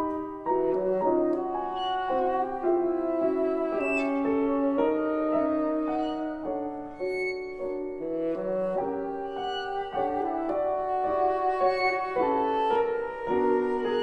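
Bassoon, violin, cello and piano playing together in a lively chamber-music passage, the notes changing quickly.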